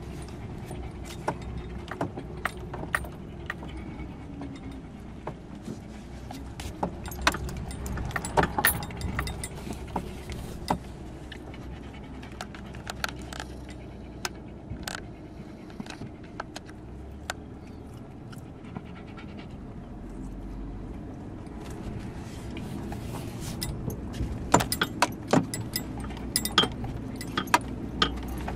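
Car driving slowly over a rough dirt track, heard from inside the cabin: a low engine hum that rises and falls, with a steady clatter of sharp rattles and clicks as the car bumps along, busiest near the end.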